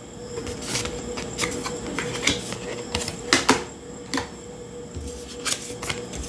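Tarot and oracle cards being handled on a table: an irregular string of light clicks and taps as cards are laid down and the next one is drawn from the deck, the sharpest snap about three and a half seconds in.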